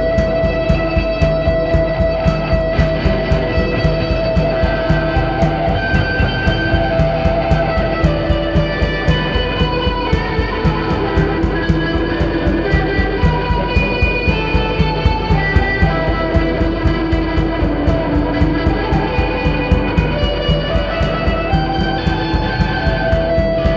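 Psychedelic rock song with electric guitar and bass over a steady, evenly pulsing drum beat, with held notes ringing through.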